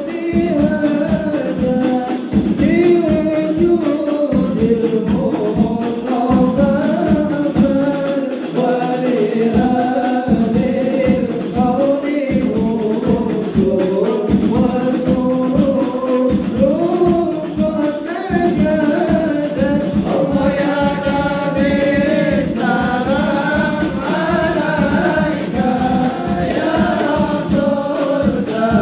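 Music: several voices singing a melody over a steady beat of jingling hand percussion.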